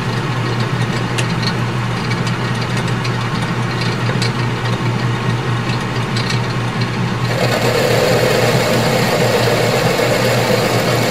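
Craftsman Atlas 10-inch metal lathe running under power, taking a light 15-thousandths cut on a steel bar, with a steady motor hum and faint ticks. About seven seconds in the sound grows louder and hissier.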